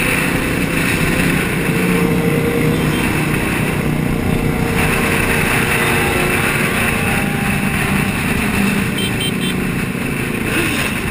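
Group of sport motorcycles riding at highway speed: engines running together under a steady rush of wind noise over a helmet-mounted microphone.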